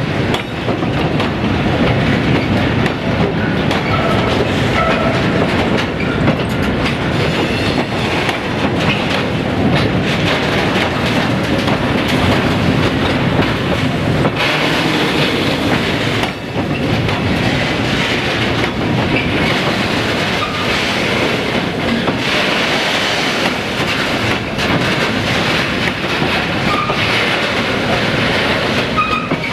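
Freight train wagons rolling past steadily, their wheels clicking and knocking over the rail joints.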